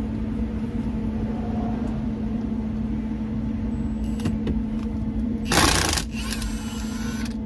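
Cordless impact wrench with a 10 mm Allen bit hammering for about half a second, past the middle, to break loose a steering-wheel bolt held with blue Loctite, then whirring for about a second as it spins the bolt out. A steady low hum runs underneath.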